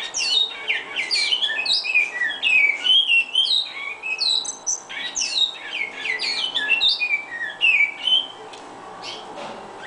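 Caged bicudo (great-billed seed-finch) singing: a rapid, unbroken warble of short downward-sliding whistled notes that stops about eight seconds in.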